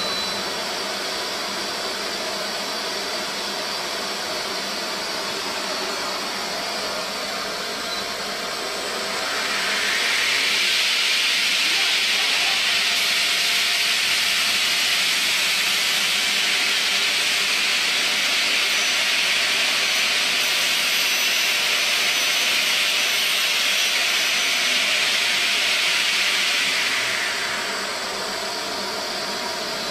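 CNC bridge saw's large segmented circular blade running and cutting a slab: a steady machine hiss that swells louder and sharper for about eighteen seconds in the middle, then drops back to a lower running noise.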